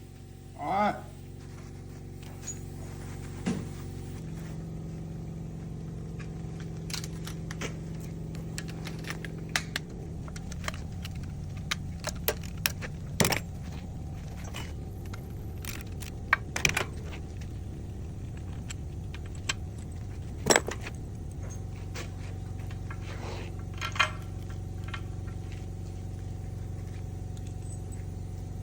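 Scattered sharp metallic clinks and taps of tools and metal parts being handled, over a steady low machine hum.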